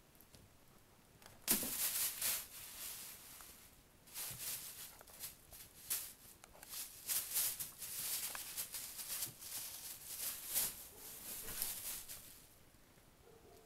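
Thin plastic shopping bag rustling and crinkling in irregular bursts as a kitten pounces on it and burrows into it. It starts about a second and a half in and dies away near the end.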